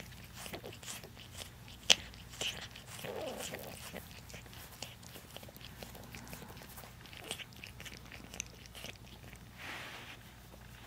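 Fingers scratching a short-haired Persian cat's chin and cheek fur close to the microphone: a run of soft crackles and clicks, with one sharp click about two seconds in.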